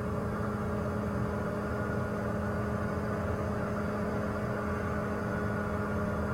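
Safari game-drive vehicle's engine running with a steady, even hum.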